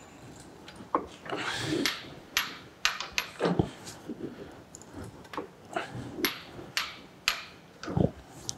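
Hand-lever arbor press pushing a square broach through a pilot hole in aluminum: a string of irregular sharp clicks and knocks as the lever is pulled down and lifted and the broach teeth cut, some with a dull low thud. The broach is cutting well.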